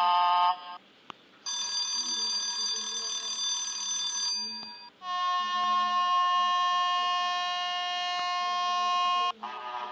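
Vehicle horn blasts, each a steady held tone: one cuts off about half a second in, then a blast of about three seconds, then a longer one of about four seconds with a different, lower pitch.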